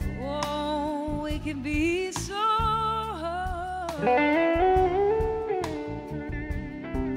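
A live blues-rock band plays an instrumental passage. An electric slide guitar carries the lead in gliding, wavering notes over drums, bass and a strummed electric rhythm guitar.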